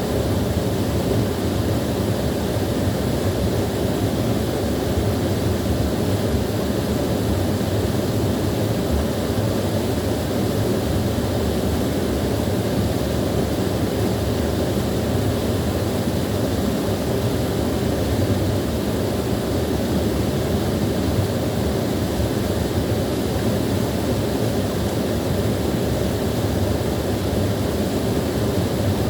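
Small waterfall: water falling and rushing steadily, a deep, even noise without pauses or changes.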